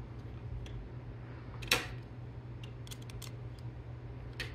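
Small clicks and one sharp click from metal robot-arm brackets and a screwdriver being handled, over a steady low hum.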